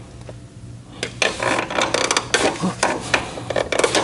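Ratchet wrench clicking in quick, irregular runs as a spin-on oil filter is snugged up, starting about a second in.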